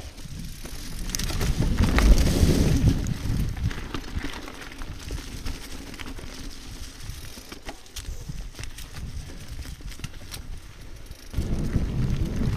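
Mountain bike rolling along a dirt trail covered in dry leaves: the tyres crunch over the leaves and ground with many sharp rattles and clicks from the bike. The sound is picked up by a camera mounted on the bike, so every bump comes through as a low rumble. It is loudest about two seconds in and again near the end.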